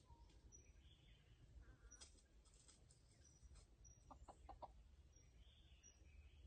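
Faint chicken clucking, a short run of three or four clucks about four seconds in, with faint high chirps from small birds.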